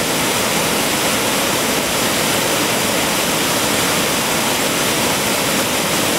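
River waterfall: white water pouring and churning over rocks in a loud, steady rush with no let-up.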